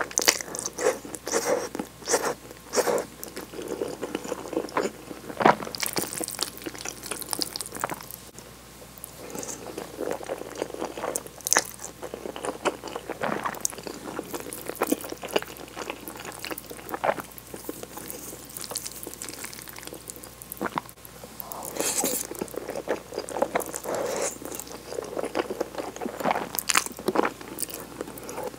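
Close-miked eating of tomato cream spaghetti: wet chewing and slurping of the noodles, in irregular smacks and clicks that thin out midway and grow dense again near the end.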